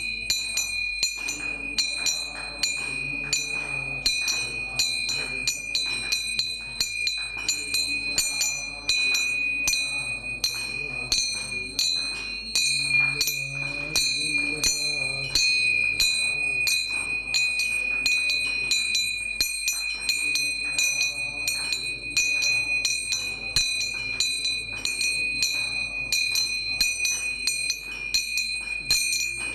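A bell struck over and over in a steady rhythm, its ringing tone sustained throughout, with music underneath.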